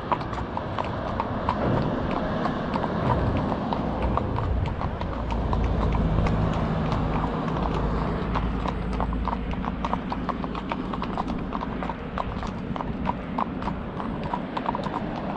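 Two Welsh Section D mares' hooves clip-clopping at a walk on tarmac, their footfalls overlapping in a steady run of clops, with a low rumble underneath.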